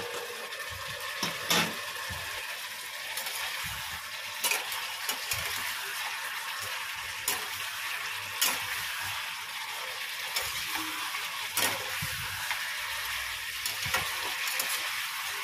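Fried fish heads and potatoes sizzling in a stainless-steel kadai as they are fried down in spice paste (kasha) and stirred with a spatula. The spatula clacks against the pan every few seconds over the steady sizzle.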